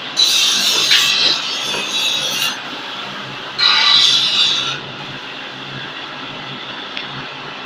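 Hydraulic interlocking brick press running, its pump giving a steady low hum. Over it come two loud hissing, squealing surges, the first lasting about two seconds and the second about a second, in the middle.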